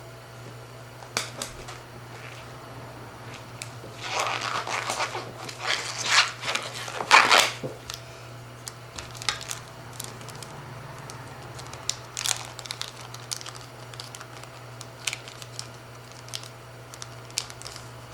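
Crinkling and rustling of thin plastic packaging being handled and pulled open, densest from about four to seven and a half seconds in, with scattered small taps and clicks, over a steady low hum.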